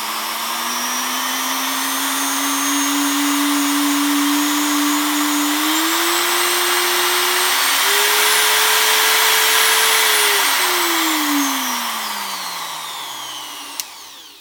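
Parkside PGS 500 A1 500 W die grinder running with no load, its motor whine climbing and stepping up in pitch twice as the speed wheel is turned to higher settings. About ten seconds in the pitch falls steadily as the tool winds down, and a single click sounds near the end.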